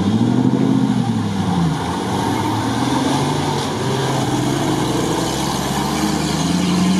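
Off-road buggy's engine revving as it drives through shallow water. The revs rise, drop about two seconds in, then climb again near the end, over the rush of water churned by the wheels.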